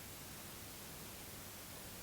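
Faint steady hiss of background noise, with no ringtone sounding: a pause between repeats of a mobile phone ringtone.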